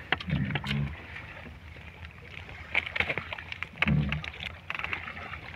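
Sea water slapping against a small fishing boat's hull, with scattered light knocks and rustles as a caught fish and its line are handled.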